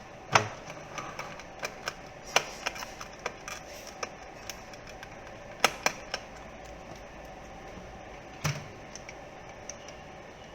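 Irregular sharp clicks and taps of a small screwdriver and a plastic remote housing being handled as its screws are taken out, busiest in the first six seconds with a few louder knocks.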